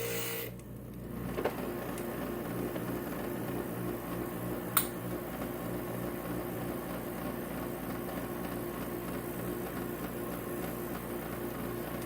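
Inland stained glass grinder's motor running with a steady hum; the brighter grinding hiss of glass on the bit stops about half a second in. Two light clicks follow, about one and a half seconds and nearly five seconds in.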